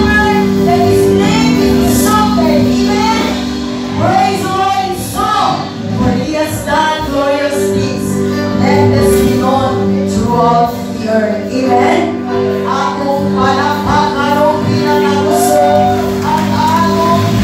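Live worship music: several women singing together into microphones over a band with drums, electric guitar and held chords.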